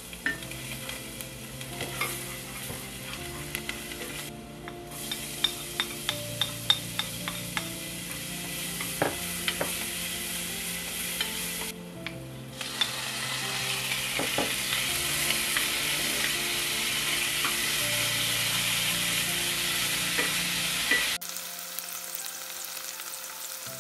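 Chicken frying in a pan with garlic, ginger and onion: a steady sizzle as it is stirred, with a utensil clicking against the pan in a run of sharp taps early on. The sizzle breaks off briefly twice and stops near the end.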